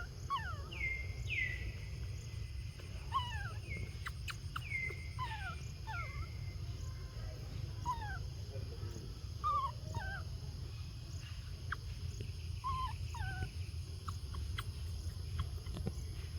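Baby monkey calling: short high-pitched calls that slide down in pitch, repeated over and over, over a steady low rumble.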